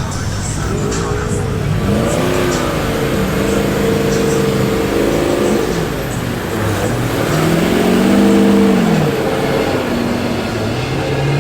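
Mud truck engine revving in repeated surges, its pitch climbing and falling several times; the longest and loudest surge comes about eight seconds in.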